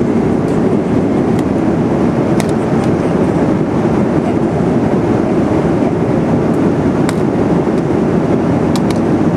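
Airliner cabin noise in flight: a steady, even rumble and rush of engines and airflow, with a few faint clicks.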